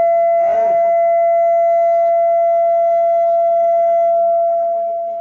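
Public-address microphone feeding back through the loudspeakers: a loud, steady single-pitched howl held for several seconds, fading near the end.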